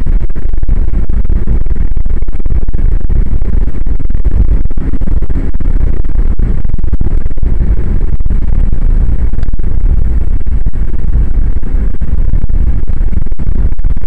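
Loud, distorted low rumble of wind and road noise on the microphone of a moving car, with no engine note or other distinct sound standing out.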